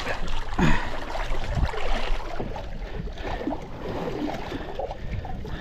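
Sea water splashing and sloshing against the side of a small wooden outrigger fishing boat, with wind noise on the microphone.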